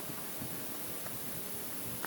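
Steady faint hiss of background noise, with no distinct knocks or voices.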